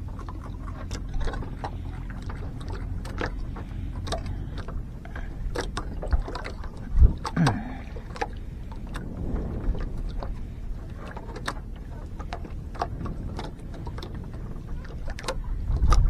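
On board a small fishing boat at sea: a steady low rumble with many scattered sharp clicks and knocks, and a brief murmur of a voice about seven seconds in.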